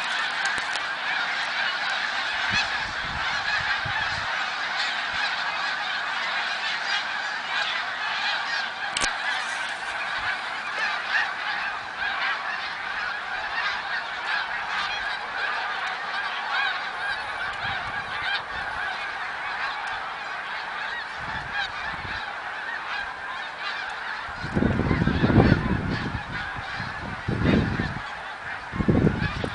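Large flocks of snow geese flying over, a dense unbroken chorus of honking calls from many birds at once. Near the end a few low rumbles break in, briefly louder than the geese.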